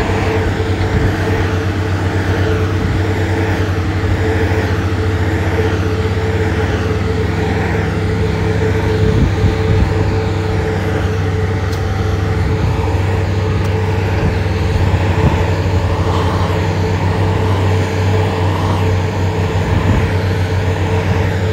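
Heavy road-construction machine's diesel engine running steadily under load, a constant low drone.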